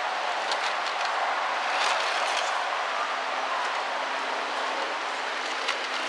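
Steady rushing of a waterfall, with a few light clicks and knocks from an RC rock crawler's tyres and chassis working over roots and rocks.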